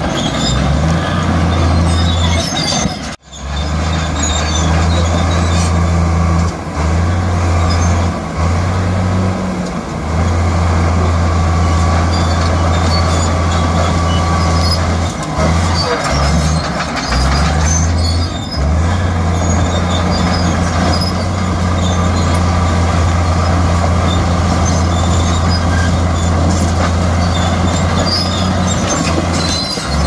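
Heavy diesel earthmoving machine running under load, its low engine note dipping and breaking off several times. It cuts out sharply for a moment about three seconds in.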